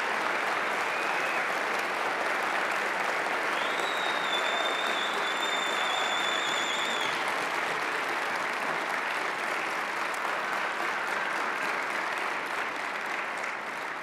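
Audience applauding steadily, dying away near the end. A high, wavering tone is held over it for a few seconds.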